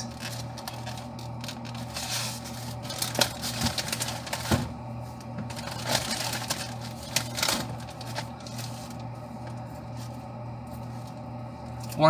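A plastic egg carton and other fridge items being handled and put away: scattered clicks, clacks and scrapes over a steady low hum.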